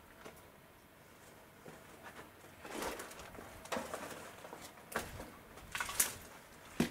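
Footsteps scuffing and knocking over rubble and debris on a cellar floor. The first couple of seconds are quiet, then there are irregular steps about once a second.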